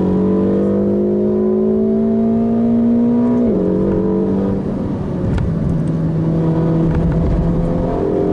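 Ferrari California T's 3.8-litre twin-turbo V8 pulling under acceleration, its pitch climbing slowly. About three and a half seconds in the pitch falls sharply, as at a paddle upshift, and it steps down again a second later before holding nearly steady.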